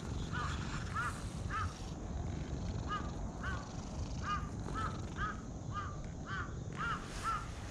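A bird calling over and over in short rising-and-falling notes, about a dozen of them at roughly two a second, over a low rumble.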